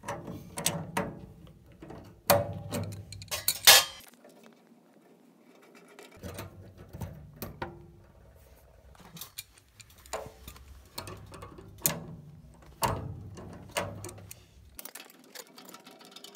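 Irregular metallic clicks, clinks and knocks of pliers and hands working the small fittings and tubing of a gas water heater's pilot assembly. The loudest cluster of clinks comes about two to four seconds in.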